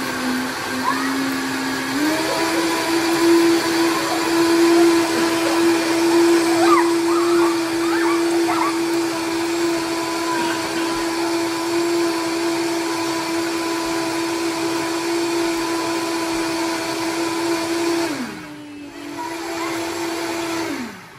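Countertop blender motor running steadily while blending a smoothie. It steps up to a higher speed about two seconds in, drops briefly and runs on at a lower speed near the end, then spins down and stops.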